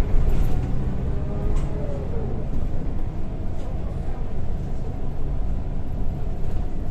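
Scania L94UB bus's engine and ZF gearbox driving the bus along, heard inside the passenger saloon: a steady low drone with a whine that drops in pitch about two seconds in.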